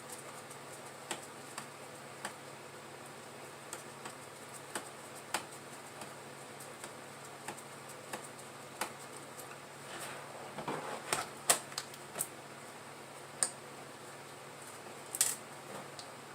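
Irregular small clicks and taps of hands handling small computer parts and packaging, over a steady low hum. A short rustle with a quick run of clicks comes about ten seconds in, and a sharper click follows about five seconds later.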